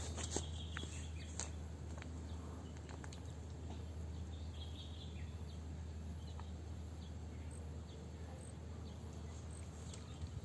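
Faint outdoor ambience at a swamp: a steady low hum with scattered small clicks and a few faint, short, high chirps.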